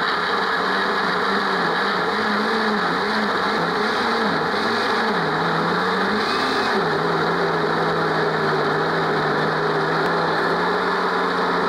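Electric blender motor running steadily, pureeing a spice paste with a little water. Its hum wavers in pitch over the first several seconds, then settles to an even tone.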